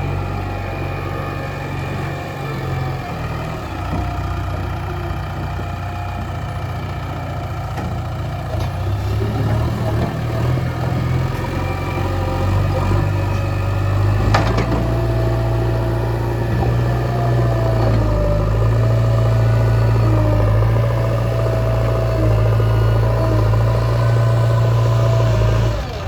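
JCB 3DX backhoe loader's diesel engine running steadily, growing louder about a third of the way in and again past the middle. A single sharp click about halfway through.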